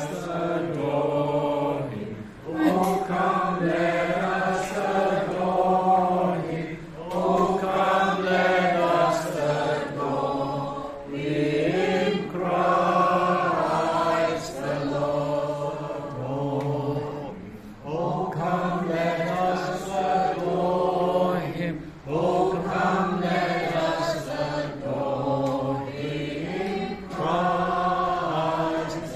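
A small group of mixed voices singing a hymn together, line by line, with short pauses for breath between phrases.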